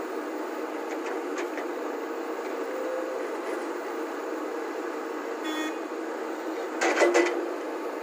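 Volvo crawler excavator's diesel engine and hydraulics running steadily while it loads a tipper truck. A short high tone comes about five and a half seconds in, and a brief loud clatter about seven seconds in.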